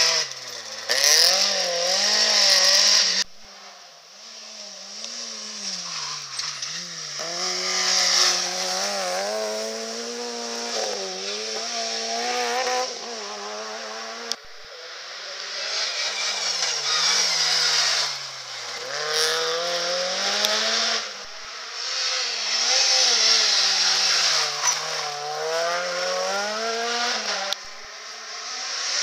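Rally car engines revving hard, pitch climbing through each gear and dropping sharply on the shifts and on lifting for corners, first from a Renault Clio rally car. The engine sound breaks off abruptly about three seconds in and again about halfway, then builds again as another car approaches and passes.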